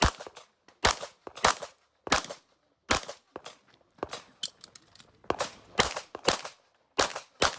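About ten pistol shots from a Production-division handgun fired during an IPSC course of fire. The shots come at uneven intervals, some in quick pairs about half a second apart, with a few fainter cracks in between.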